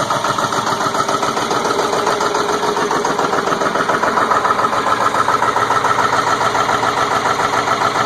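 Ford 7.3 L Powerstroke turbo-diesel V8 idling cold with an even, pulsing beat, shortly after a hard cold start; the owner is troubled by the white smoke it is blowing.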